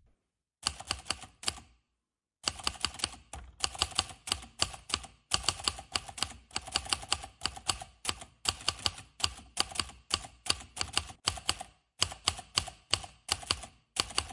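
Computer keyboard typing sound effect for a typewriter-style text reveal: rapid key clicks in bursts with short pauses, with a brief silence about two seconds in.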